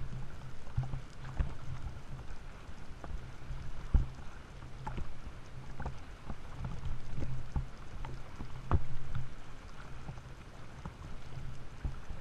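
Seawater sloshing and splashing around a camera riding at the surface among open-water swimmers, with sharp slaps of water against the housing, the loudest about four seconds in and near nine seconds. A steady low hum runs underneath.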